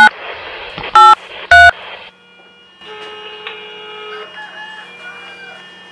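Mobile phone keypad dialling tones: three short loud beeps in the first two seconds as a number is dialled, each a steady two-note beep. Fainter steady tones follow.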